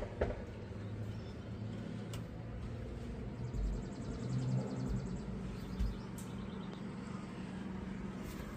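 Outdoor ambience: a steady low rumble, with a rapid high trill about three and a half seconds in, a fainter one just after it, and a few faint clicks.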